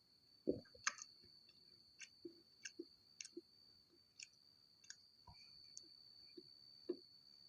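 Close-miked chewing of chocolate toasted bread: faint, irregular wet clicks and smacks of the mouth, a dozen or so, over a thin steady high whine.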